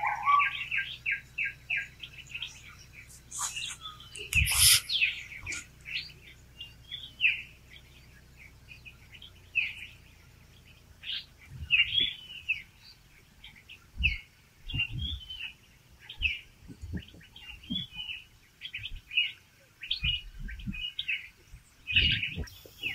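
Small birds chirping in short, quick notes throughout, with a louder cluster of calls about four and a half seconds in. Occasional low thumps come in the second half.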